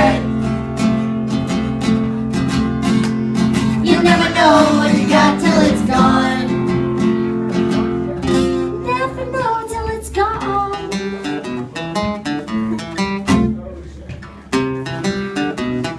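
Acoustic guitar played live, chords strummed and picked, with a voice singing over it in places.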